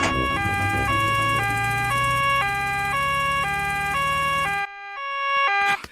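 Cartoon two-tone 'nee-naw' siren of an arriving doctor's car, alternating a high and a low note about every half second, over a low engine hum that cuts off near the end.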